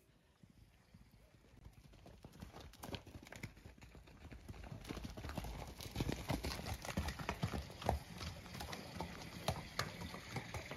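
Horses' hooves clip-clopping as they walk past, a string of irregular hoofbeats that grows louder from about two seconds in.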